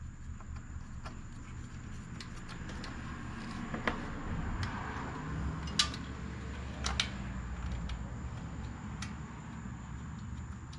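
A few sharp, light clicks and knocks of metal parts and tools being handled during engine reassembly, spread out over a steady low hum.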